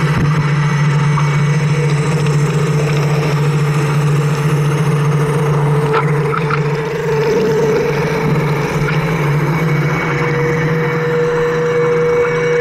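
Steady hum of a Hubsan H501S X4 quadcopter's brushless motors, heard from its own onboard camera. A higher whine in the hum shifts slightly and then holds steady, and a few faint clicks come about six seconds in.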